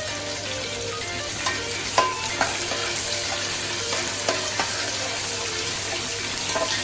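Sliced onions sizzling in hot oil in a large metal pot, just added for frying. A metal spatula stirs them and clinks against the pot several times.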